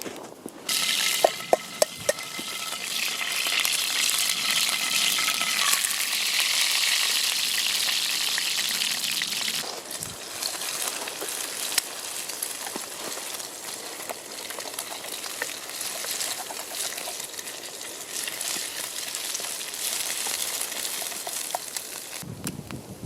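Food frying in a hot pan on a campfire: the sizzle starts suddenly about a second in with a few sharp clicks, is loudest for the first several seconds, then settles to a lower, steady sizzle.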